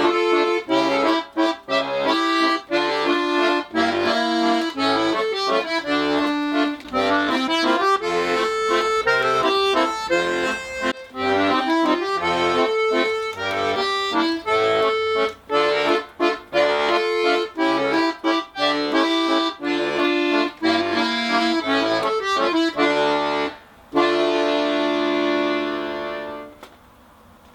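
A Tula 'Etude' bayan (Russian button accordion) being played: a melody over a rhythmic left-hand bass-and-chord accompaniment, ending on a long held chord that fades away near the end. Its bellows compression is only fair, a 'four out of five', because the valves on the left side were not re-glued.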